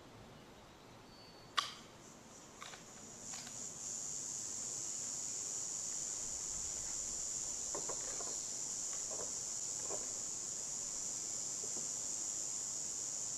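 A few sharp metallic clicks from handling the Winchester 1895 lever-action rifle, the loudest about a second and a half in. From about three seconds a steady high-pitched insect drone sets in and holds, with a few soft knocks around eight to ten seconds.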